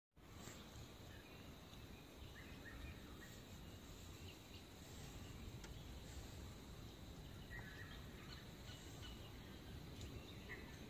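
Faint outdoor ambience: an even low rumble and hiss with a thin, steady high tone and a few short, faint chirps.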